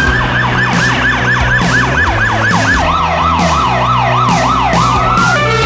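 Emergency vehicle siren in rapid yelp mode, sweeping up and down about four or five times a second. About three seconds in it drops to a lower-pitched yelp, with a steady musical beat underneath.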